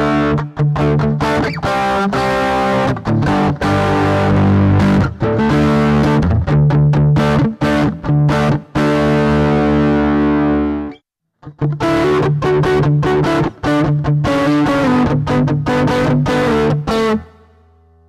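Electric guitar played through a Zoom G1Four multi-effects pedal on its MS high-gain patch (Gold Drive into the MS-800 amp model, noise reduction and plate reverb), with the MS 4x12 cab sim's mic switched off. Distorted chords are strummed in a choppy rhythm, cut off sharply about eleven seconds in, pick up again half a second later, and ring out near the end.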